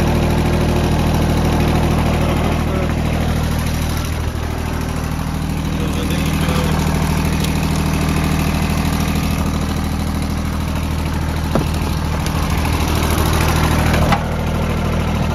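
Small three-cylinder diesel engine of an Iseki SG173 ride-on mower idling steadily, with a sharp click past the middle and another near the end.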